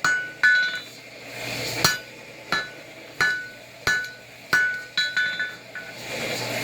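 Blacksmith's hammer striking hot metal on an anvil, each blow ringing out clearly, about one and a half blows a second, with a quick run of lighter taps about five seconds in. A steady rushing noise comes up near the end.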